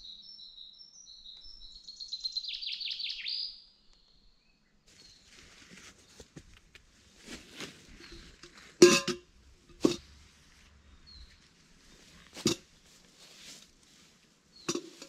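A songbird sings one short song that ends in a fast falling trill. Then comes rustling with several sharp cracks; the loudest is about nine seconds in.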